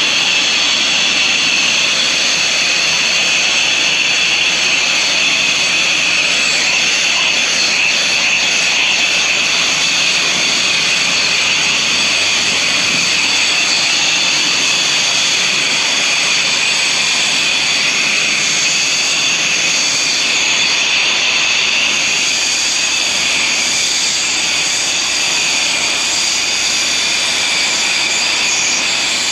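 Pressure washer spraying: a steady, loud jet of water hissing from the nozzle, with no let-up.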